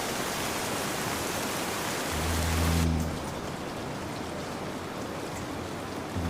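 Steady rain hiss with a man snoring once, a low snore lasting under a second about two seconds in. Just after the snore, the high part of the rain hiss cuts off abruptly, leaving a duller rain.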